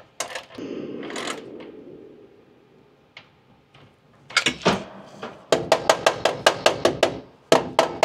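Ratchet wrench clicking in quick even runs, about six clicks a second, as a duct clamp nut is tightened. It stops briefly once before a second run. A short scraping rustle comes early, about half a second in.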